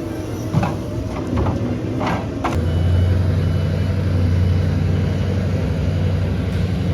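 Heavy machine's engine running, with several knocks in the first two and a half seconds. Then the engine note grows louder and deeper, with a faint intermittent beeping like a reversing alarm.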